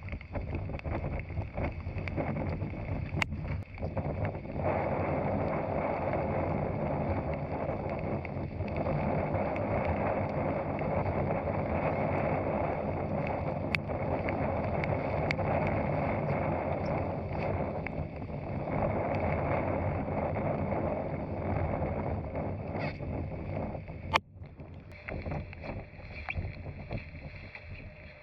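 Boat's outboard motor running steadily under way, with wind and water rushing over it. About 24 seconds in there is a sharp click and the sound suddenly drops lower.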